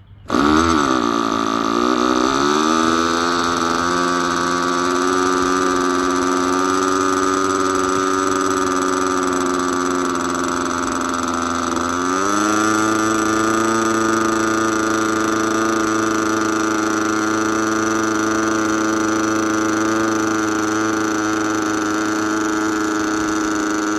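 RC model aircraft glow engine running on a starting bench, its pitch wavering for the first couple of seconds before settling into a steady tone. About halfway through, it steps up to a higher, steady speed as the throttle is opened a little.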